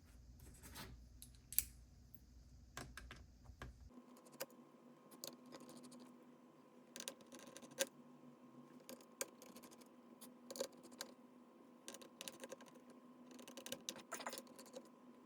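Faint, irregular clicks and small taps of a T5 Torx screwdriver turning out the small screws that hold a laptop battery in place. A faint steady hum comes in about four seconds in.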